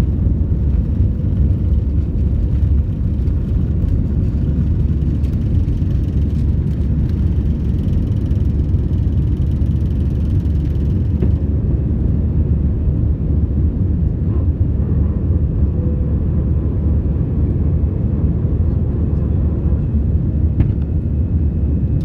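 Heard inside the cabin, an Airbus A319 takes off: its jet engines run steadily at takeoff power under a heavy low rumble. About eleven seconds in, the hiss of the runway roll stops as the aircraft lifts off, and the steady engine drone of the climb continues.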